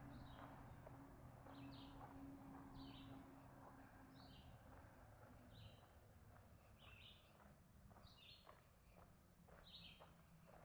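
A bird calling faintly and repeatedly, short high calls about every second and a half, over a low hum that fades away in the first half.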